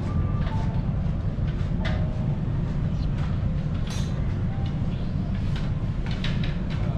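Steady low rumble of a large ferry's engines and machinery heard inside the ship, with a few light clinks of tableware.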